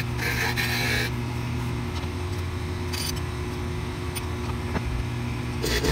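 Wood lathe motor running steadily with a hum. For about the first second a turning chisel cuts the spinning red ash spindle with a hissing scrape, then the cutting stops.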